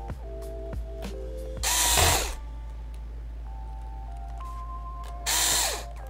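Electric screwdriver driving small screws into a laptop, in two short runs of about half a second each, its whine dropping in pitch as each run stops. Soft background music plays underneath.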